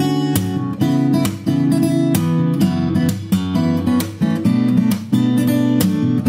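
Instrumental background music: acoustic guitar strumming chords in a steady rhythm.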